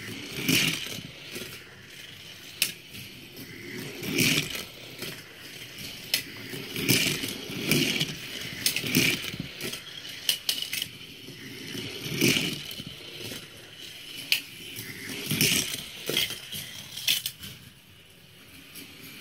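Irregular bursts of clattering and clinking, about a dozen spread out with a few sharp clicks among them: small die-cast toy cars and plastic track pieces knocking together.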